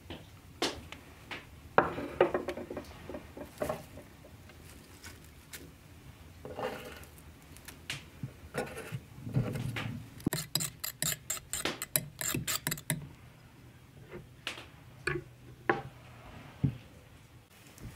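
Metal fork beating eggs in a stoneware bowl: a run of quick, even clicks lasting about three seconds near the middle. Before and after it come scattered clinks and taps of a spoon and fork against the bowl and the wooden board.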